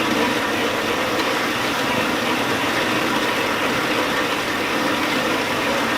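John Deere tractor engine idling steadily.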